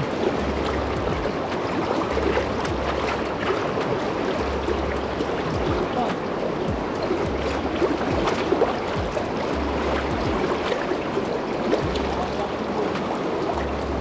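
Shallow mountain river running fast over a rocky riffle: a steady rush of water.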